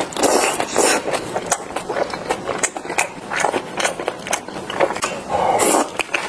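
Close-miked eating sounds: wet chewing, slurping and lip smacks on Korean rice sausage (sundae) and spicy cabbage kimchi, with many sharp clicks and two louder slurping bursts, near the start and about five seconds in.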